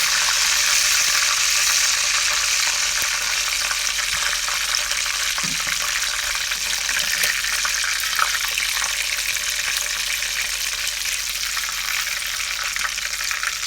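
Palm oil sizzling in a pot as fried fish are lifted out of it, a steady sizzle that eases a little toward the end.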